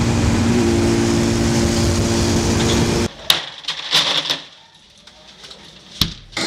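Steady engine and wind noise of a vehicle travelling at highway speed, cutting off suddenly about three seconds in. Then glass bottles clinking as one is lifted from a crate in a chest freezer, and a single sharp knock near the end as the freezer lid is shut.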